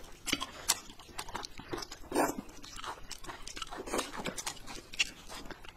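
Close-up eating sounds: slurping and chewing of wide buckwheat noodle sheets, a run of short, irregular wet smacks and slurps, the strongest about two seconds in.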